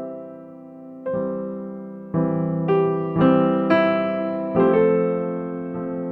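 Soft background piano music: slow chords and single notes struck one after another, each ringing out and fading.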